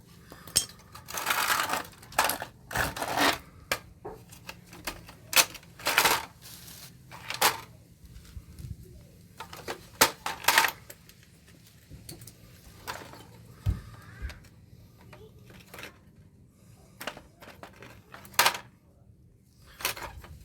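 Metal clinks and clatter of parts and tools being handled while an air-conditioner condenser is taken apart for scrap: irregular sharp knocks with a few short scraping rattles.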